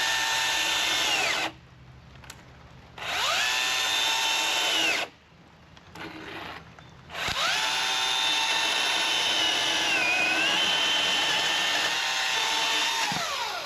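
Milwaukee M18 battery top-handle chainsaw's electric motor whining up to speed and winding down three times, two short runs and then a longer one whose pitch dips briefly in the middle under load. The saw is making a test cut with a chain whose depth gauges were filed too low; the owner says it is still not right and the motor shuts down in the cut.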